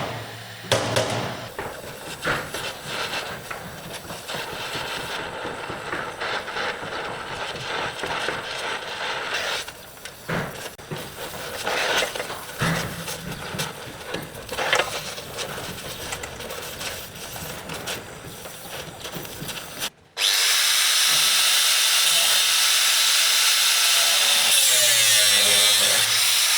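Power tools working on car body metal: irregular rasping and scraping strokes. About two-thirds of the way through, the sound cuts to a steadier, louder hiss of a tool running.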